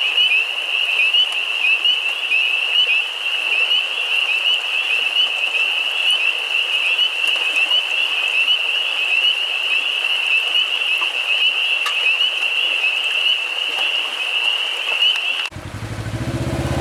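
Chorus of many frogs calling at once, a dense stream of short, high, rising peeps. Near the end it cuts off abruptly to an engine idling steadily.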